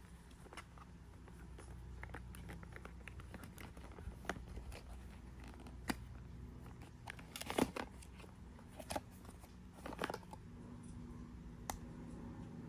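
Cardboard packaging being handled: light scrapes, taps and crinkles as an inner box slides out of its sleeve and a dashcam and its cable are lifted out, with louder rustles about seven and a half and ten seconds in.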